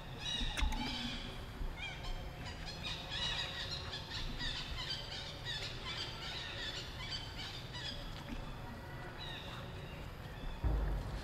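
Many short, high-pitched animal chirps and squeaks overlapping, with a brief low rumble near the end.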